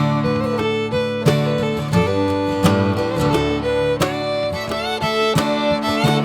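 Instrumental background music: a fiddle playing sliding melody notes over plucked acoustic guitar, in a bluegrass or country style.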